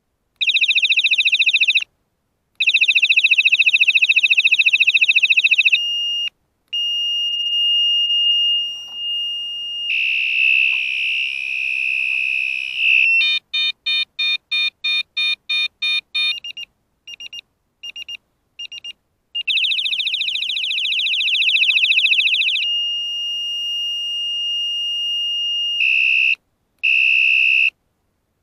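Electric bicycle horn, a loud USB-rechargeable unit rated at 120 dB, set off from its wired remote button and run through several of its sounds: harsh buzzing alarm tones, a steady high whistle, a fast beeping at about three beeps a second and short separate pips. Each sound starts and stops abruptly.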